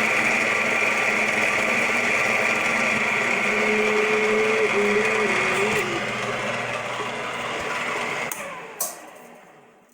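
A drill motor runs steadily while countersinking holes, with a short squeal from the cutter midway. Near the end there is a sharp click as it is switched off, and the motor winds down.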